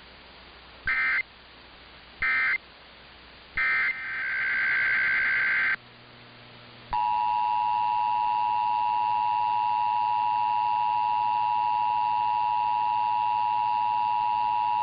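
Emergency Alert System signals: three short bursts of screechy digital data (the SAME end-of-message code), then a longer burst of SAME header data, then after a short gap the steady two-tone EAS attention signal held for about eight seconds.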